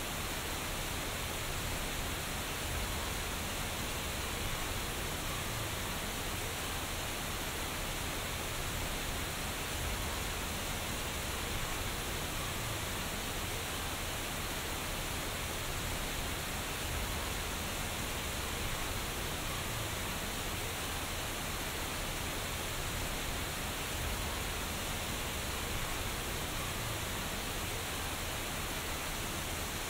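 Steady rush and splash of water from small rock waterfalls cascading into a pool.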